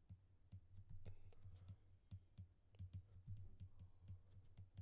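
Faint, irregular clicks of an Apple Pencil's plastic tip tapping and writing on the iPad mini's glass screen, over a low steady hum.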